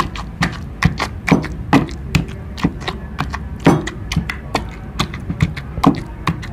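Wooden pestle pounding a wet mash of fish and chopped vegetables in a mortar, in a steady rhythm of sharp knocks about two a second.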